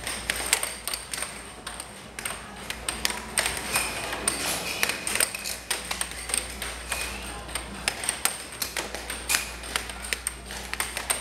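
Air hockey puck clacking against the plastic mallets and the table's rails in irregular sharp knocks during a rally, over arcade background noise.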